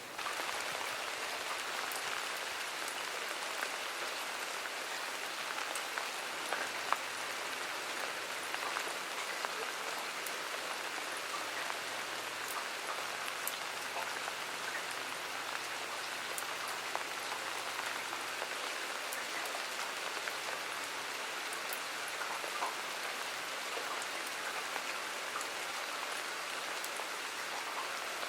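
Steady rain falling, with individual drops ticking sharply now and then.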